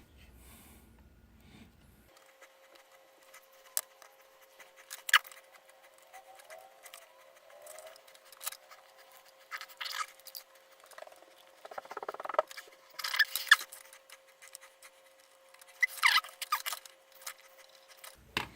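Small clicks, taps and short scratchy rustles of tools and parts handled on a workbench during close soldering work on an Xbox One controller's joystick, over a faint steady tone. A sharp click comes about five seconds in, and the loudest scratching falls around the middle and near the end.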